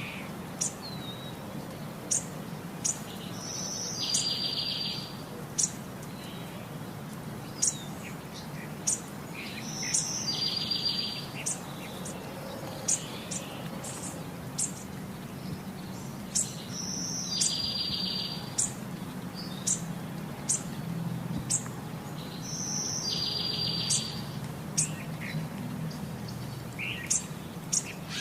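Birds singing: one bird repeats a phrase of a high note followed by a buzzy trill about every six or seven seconds, among scattered short high chirps, over a faint steady low hum.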